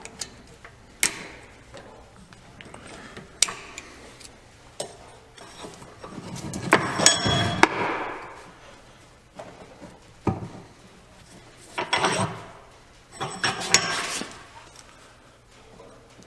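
Sharp metal clicks and clinks of snap-ring pliers and a screwdriver working the retaining clips off the U-joint caps of a driveshaft yoke held in a vise. Three louder metallic clattering spells come in the middle and toward the end, the first with a brief metallic ring.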